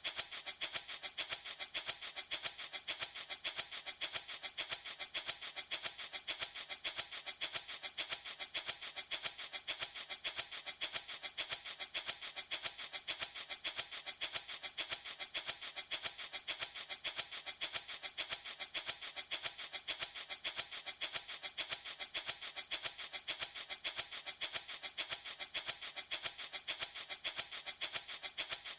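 Handmade wooden baby rattle shaken steadily in a fast, even rhythm, a dense bright rattling of small beads or seeds.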